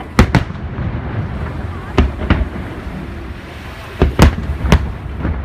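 Aerial fireworks shells bursting: about seven sharp booms in quick pairs and triples, near the start, about two seconds in and around four seconds in, over a continuous low rumble.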